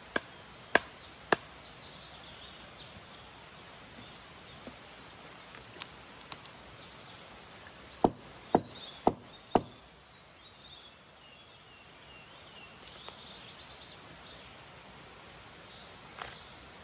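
Axe chopping into a slender wooden pole with sharp, separate blows: three at the start, four more in quick succession about eight seconds in, and one lighter blow near the end.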